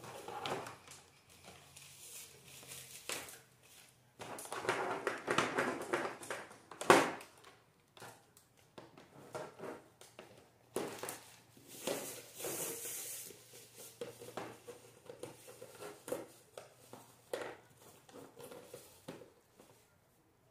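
Irregular rustling and crinkling from hands working with a potted plant and its materials, with scattered knocks and one sharper knock about seven seconds in.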